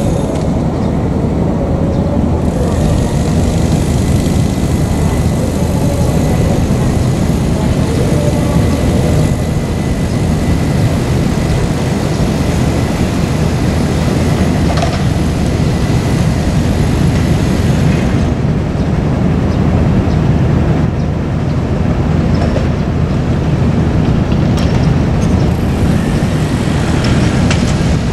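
Kobelco hydraulic excavators' diesel engines running as they work a demolition site: a steady low rumble, with a few faint clanks.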